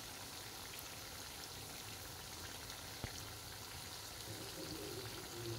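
Yeast doughnuts frying in a pan of hot oil: a steady crackling sizzle of fine popping bubbles. One sharp click sounds about three seconds in.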